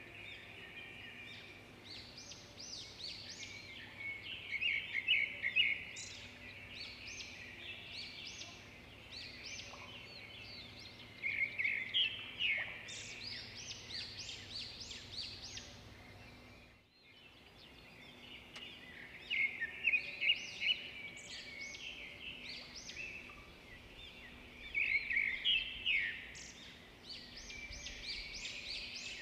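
Birds chirping: clusters of short, high notes come every few seconds over a faint steady hum, with a brief dropout about halfway through.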